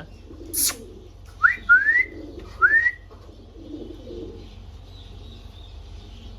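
Indian ringneck parrot gives one short harsh screech. Then come three quick whistles, each sliding upward in pitch.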